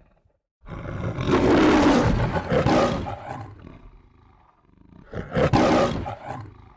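MGM logo lion (Leo the Lion) roaring twice: a long roar of about three seconds, then a shorter second roar about five seconds in.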